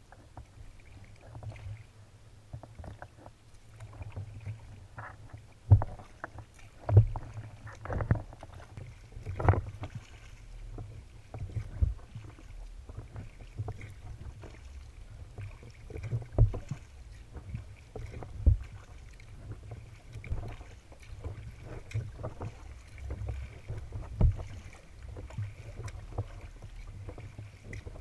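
Sea kayak paddled through choppy water: irregular splashes and slaps of water against the hull, over a steady low rumble.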